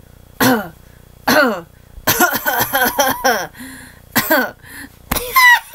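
A voice making short wordless grunts and hums, each sliding down in pitch, a busier stretch of sounds in the middle, then a couple of higher sliding cries near the end.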